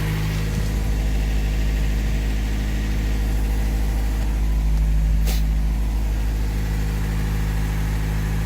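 Freshly rebuilt Toyota pickup engine idling steadily, with a single brief click about five seconds in.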